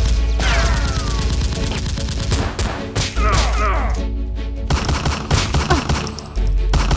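Rapid bursts of dubbed gunfire sound effects for a foam-blaster fight, with falling whistling whizzes about half a second in and again around three seconds, over background music with a deep bass.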